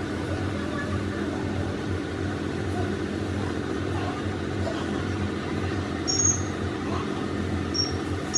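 A steady, even mechanical drone with a low hum, engine-like, running throughout, with a few short high-pitched chirps near the end.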